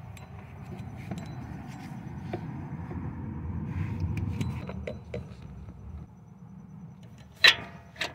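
A low rumble swells and fades. Then, about seven and a half seconds in, a steel socket on a long extension bar is set onto the exhaust oxygen sensor, giving one sharp metallic clink with a brief ring, followed by a lighter clink.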